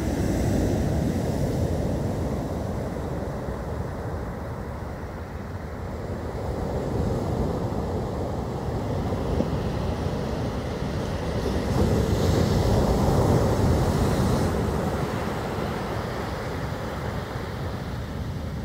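Storm surf breaking and washing up the beach under strong wind, with gusts buffeting the microphone in a low rumble. The noise swells and eases, loudest for a couple of seconds about twelve seconds in.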